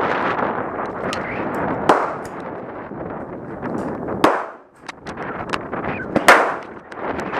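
Handgun shots at an outdoor range, the loud ones from a Ruger SP101 .357 Magnum revolver: three sharp reports about two, four and six seconds in, among fainter shots, over a steady rushing noise.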